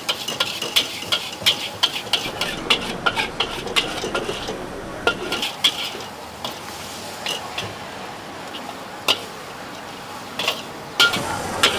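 Metal spatula striking and scraping a wok while stir-frying noodles, in quick irregular clinks that are busiest in the first half, with a few loud clanks near the end. A faint sizzle lies underneath.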